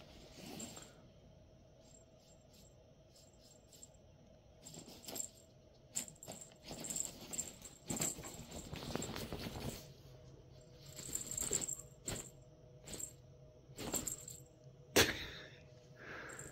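Scattered rattling, rustling and clicking of a wand cat toy as a cat bats at it and chews its ribbon end, starting about five seconds in, with one sharp click near the end.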